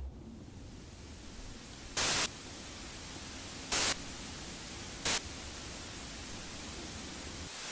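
Steady static hiss with three brief, much louder bursts of static about two, four and five seconds in, swelling near the end: a damaged camera's recording breaking up.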